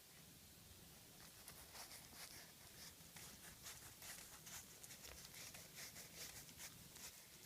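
Faint, irregular scratching and light taps from a Sheltie puppy moving about, starting about a second in, over a low room hum.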